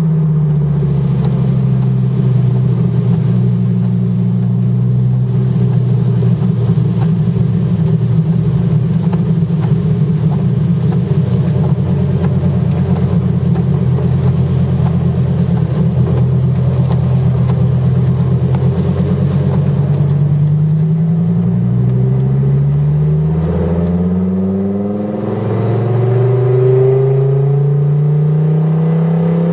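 Dodge Viper GTS's V10 engine heard from inside the cabin, running steadily at low revs, then revving up in several rising sweeps over the last third.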